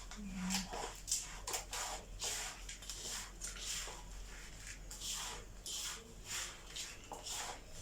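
Rolled oats stirred in a bowl: a run of short, dry rustling scrapes about twice a second.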